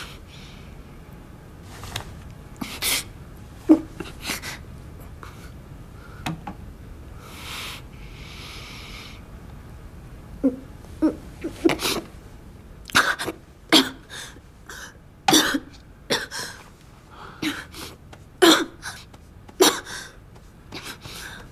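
A woman coughing and crying in short, irregular bursts, a few at first and then coming thick and fast in the second half.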